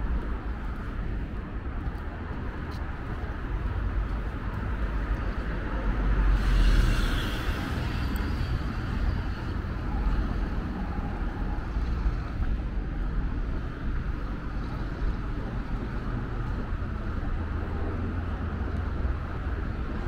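Road traffic: a steady low rumble of passing cars, with one louder vehicle going by about six seconds in.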